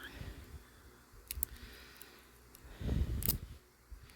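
Faint metallic clicks of a lock pick and tension wrench working the pins of a Defiant pin-tumbler padlock, which has security pins that give false sets. A few sharp ticks, with a duller handling bump about three seconds in.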